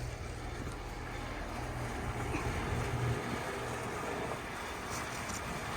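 2007 Heil Quiet Comfort air-conditioner condensing unit running, a steady low hum of compressor and fan with a lot of rattle. The owner takes the unit to have a broken coil.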